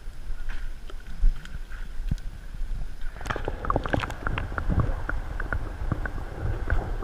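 Wind rumbling on the microphone outdoors, with many small irregular clicks and taps starting about three seconds in.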